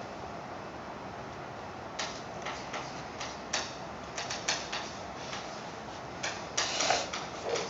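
Chalk tapping and scratching on a chalkboard as equations are written: a steady background hum at first, then from about two seconds in a run of sharp, irregular taps, coming thickest near the end.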